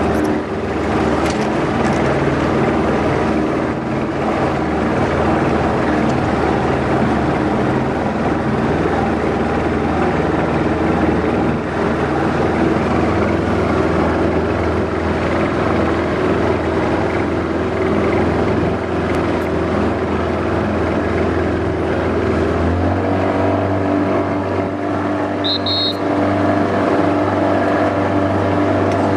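Motorboat engine running steadily at low speed. About two-thirds of the way through, its pitch shifts and it settles into a new steady hum.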